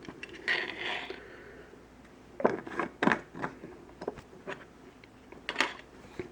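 Small tools and parts being handled on a workbench: a brief rustle, then about five separate sharp clicks and knocks.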